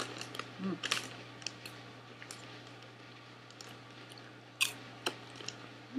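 Crinkling of a foil snack bag and crunching of popcorn being eaten: scattered sharp crackles, with a few louder ones about a second in and about three-quarters through.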